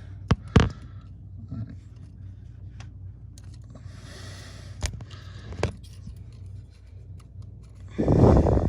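Small metal clicks and scrapes of pliers working the selector-rod retaining clip off a BMW E36's shift linkage, with a louder rush of noise near the end.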